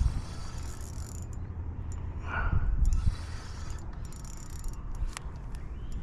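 Wind buffeting the microphone with a steady rumble, over the soft mechanical turning of an Okuma ITX Carbon spinning reel being wound in on a retrieve, with a brief louder rush about halfway through.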